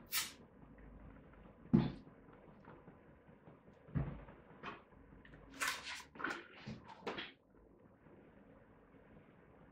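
A loud knock just before two seconds in, then a glass bottle knocking down onto a glass-topped coffee table about four seconds in. A run of short rustles and taps follows as a paper booklet and pen are picked up, stopping a little after seven seconds.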